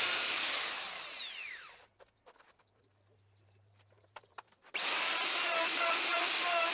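An electric power tool is switched off and winds down with a falling whine. After about three seconds of near silence and a few small clicks, it starts again abruptly and runs steadily.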